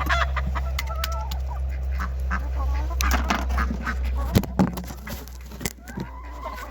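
Poultry calling over and over in short, wavering calls, with sharp clicks scattered among them and a steady low hum underneath.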